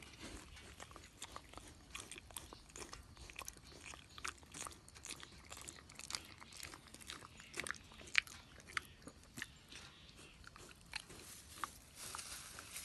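Piglet chewing banana with irregular wet smacks and clicks of its mouth.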